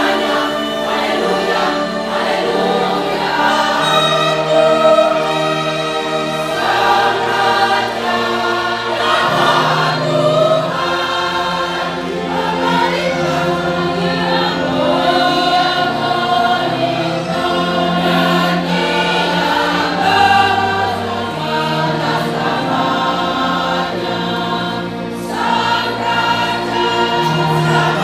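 A mixed choir of women's and men's voices singing in harmony, with long held chords and lower voices sustaining notes under the moving upper parts.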